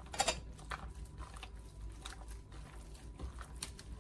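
A hand squishing and working eggs into flour in a plastic mixing bowl, with soft, scattered crackling and squelching. There is a sharper knock just after the start.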